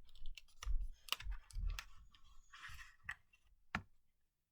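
Handling noise from opening a small advent calendar pouch and taking out its contents: a run of irregular clicks and taps with a brief rustle about two and a half seconds in, dying away near the end.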